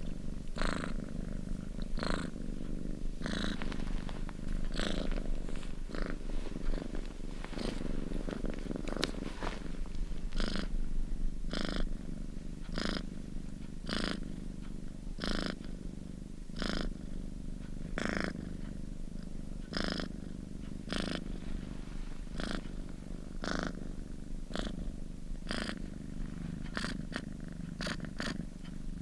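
A domestic cat purring steadily and close up, the purr swelling in a regular rhythm about every one to two seconds.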